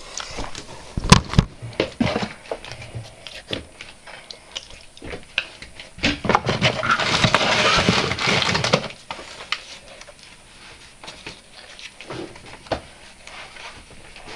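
Camera handling noise: sharp knocks about a second in, scattered clicks, then loud rubbing and rustling against the microphone from about six to nine seconds in as the camera is covered, and faint ticks after.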